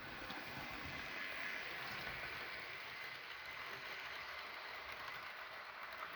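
OO gauge model trains running on the layout: a steady whirr and hiss of small locomotive motors and wheels on the rails, with a few faint ticks.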